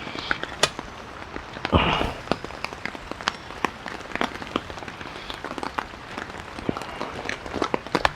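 Rain falling, with many irregular sharp drop ticks, and a brief louder rustle about two seconds in.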